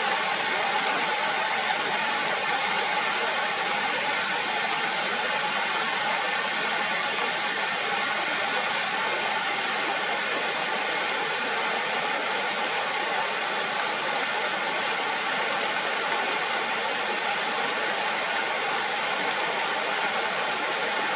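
Waterfall swollen by heavy rain, its falling water rushing in a steady, unbroken hiss.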